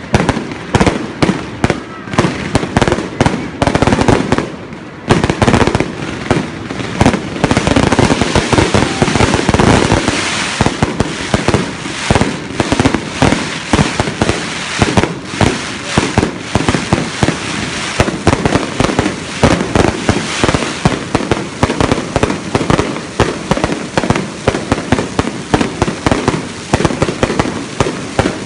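Fireworks display: a rapid, dense barrage of bangs and crackling from shells bursting overhead, with a brief lull about five seconds in.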